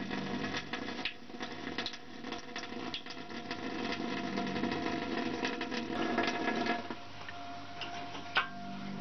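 Water running from a tap into a sink, a dense crackling splash that stops about seven seconds in. A faint steady hum remains after it, and there is a single click near the end.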